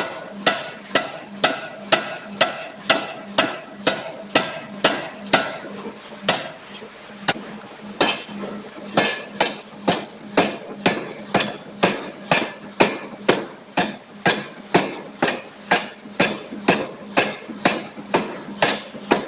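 C41 560 kg pneumatic forging hammer striking bearing-ring blanks in a fast, even rhythm of about two blows a second, over a steady low hum. The blows come more sparsely for a moment around the middle.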